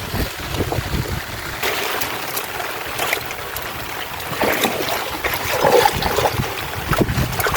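Water splashing and trickling, with scattered sharp knocks and handling noises.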